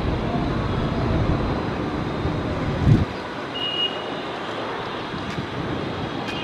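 Airbus A330-300 airliner on final approach, its jet engines a steady low rumble. The low rumble drops away abruptly about three seconds in, just after a short thump, and a brief high beep follows.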